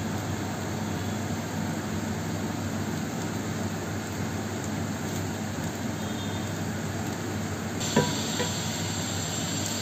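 Diced potatoes and curry leaves sizzling steadily in oil in a cast-iron pan. About eight seconds in, a metal utensil clinks twice against the pan.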